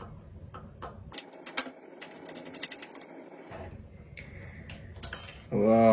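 Small sharp clicks and taps of a precision screwdriver working the tiny screws inside an iPhone XS Max, with a quick run of clicks about a second and a half in.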